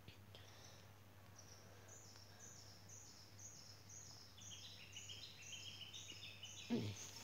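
Faint bird calls: a run of short, high notes, each a step lower than the one before, repeating. About halfway through, a second overlapping run of lower notes joins in. A single handling thump near the end.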